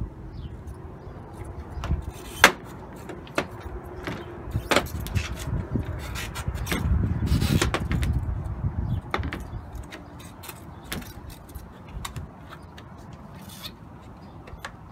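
Plastic clicks, knocks and rubbing as grille inserts are handled and pressed into the back of a plastic car bumper cover, with a longer, louder stretch of noise near the middle.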